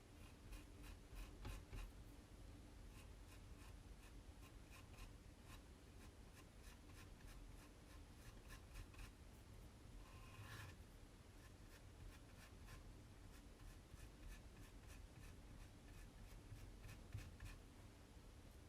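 Faint, repeated short scraping strokes of a squeegee spreading chalk paste across a silkscreen transfer, with one longer, stronger scrape about ten seconds in.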